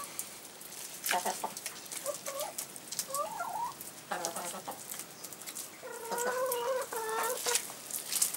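Ex-battery hens clucking as they feed, in short calls about a second apart, then a longer run of calls about six seconds in. Sharp clicks of beaks pecking at chopped greens and soil come and go underneath.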